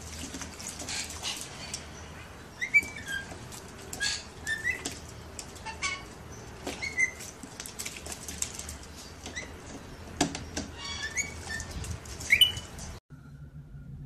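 Rainbow lorikeet bathing in a shallow tub of water: splashing and flapping its wings, with short, high, rising chirps now and then. It cuts off abruptly about a second before the end.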